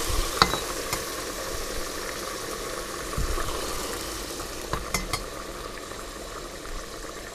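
Boiling water poured into a hot pot of butter-toasted rice and chickpeas, setting off a steady sizzle and bubble that slowly dies down. A few light clinks of a glass measuring cup, near the start and about midway.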